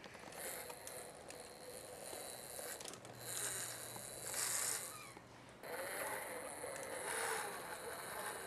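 Toy remote-control monster truck's motor and gears whirring in three spurts of a couple of seconds each as it moves across carpet.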